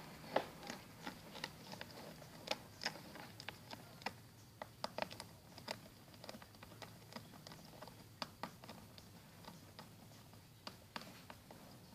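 A utensil tapping and clicking against the container as a thick face-wash-and-salt slime mixture is stirred: faint, irregular light clicks, a few a second.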